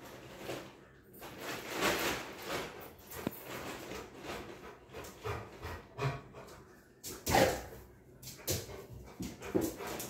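A large black dog vocalizing in a string of irregular whines and yelps, the loudest and sharpest about seven and a half seconds in: begging for the food held above its head.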